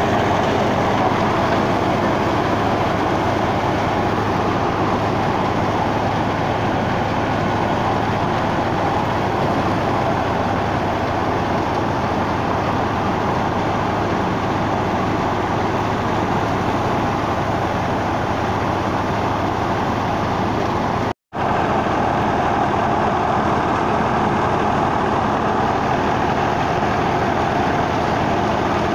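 Wheat thresher driven by a New Holland Ghazi 65 hp diesel tractor, running steadily under load as crop is fed in: a loud, even mechanical din of the threshing drum and the tractor's engine. The sound cuts out for a split second about 21 seconds in.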